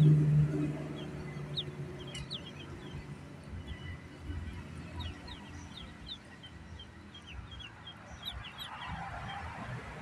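Ducklings peeping: many short, high cheeps scattered throughout. A louder low-pitched hum in the first half second fades out.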